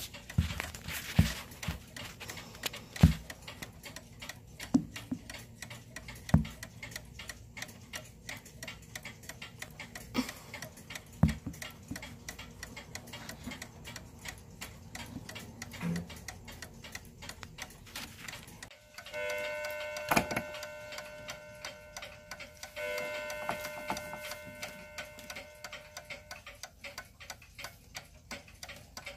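A 31-day tambour mantel clock ticking steadily, with several low bumps in the first sixteen seconds. About two-thirds in, its chime rods are struck a few times and ring for several seconds before fading.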